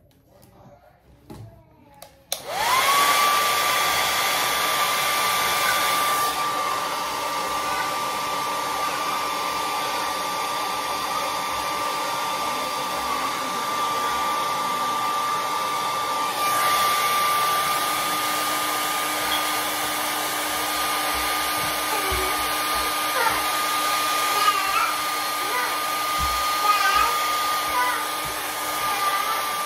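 Handheld hair dryer switched on about two seconds in, spinning up quickly and then running steadily with a high whine.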